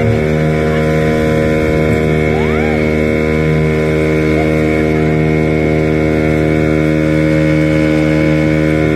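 Motorboat engine running steadily, a constant pitched hum that holds the same note throughout.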